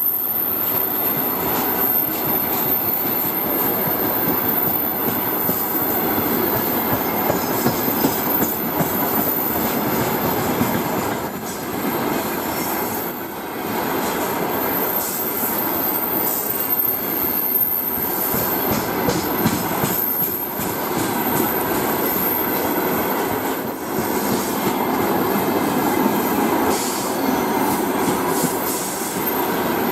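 Freight train wagons rolling past at speed: a steady rumble of steel wheels on the rails with a continual rapid clatter and light wheel squeal.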